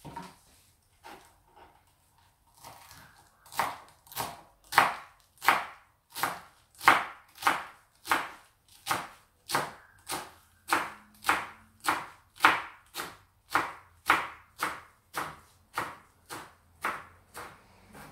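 Kitchen knife chopping fresh coriander on a cutting board: light, scattered cuts at first, then from about three seconds in a steady, even rhythm of sharp chops at just under two a second.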